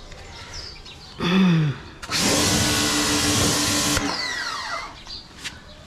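Ingco 1400W electric pressure washer triggered: a short burst with a falling tone about a second in, then the motor and pump run with the water jet hissing for about two seconds. It cuts off sharply when the trigger is released, with a falling whine as the motor winds down.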